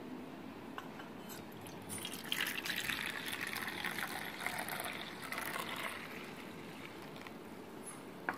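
Milky South Indian filter coffee poured in a long stream from a steel tumbler down into a steel dabara, splashing into the liquid already in the bowl; this is the once-over pouring (aathuthal) that mixes in the sugar. The stream starts about two seconds in and tapers off after about six seconds.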